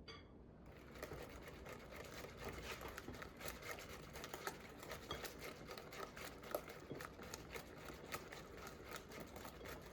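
Rapid, continuous scratchy scraping and clicking of hand food preparation in the kitchen, starting about a second in.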